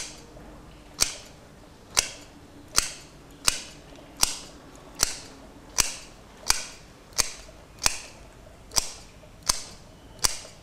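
Revolving leather hole punch snapping shut through leather, one sharp click roughly every three-quarters of a second as a row of lacing holes is punched.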